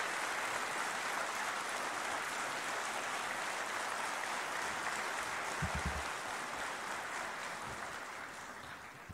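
Large audience clapping steadily, fading out over the last couple of seconds. A brief low thump about six seconds in.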